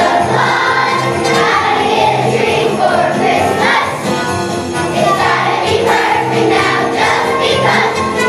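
Children's choir singing with a musical accompaniment that includes jingle bells.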